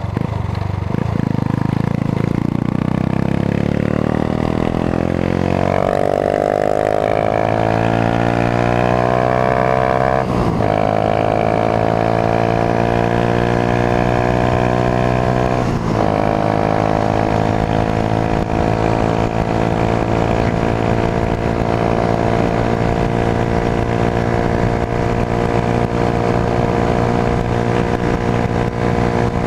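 A 1999 Honda CG motorcycle's single-cylinder engine, breathing through a GP Competition aftermarket exhaust, pulling hard and rising in pitch. There are brief breaks about ten and sixteen seconds in, likely gear changes, then it holds a steady pitch at cruising speed. The owner finds it weak and suspects worn clutch plates.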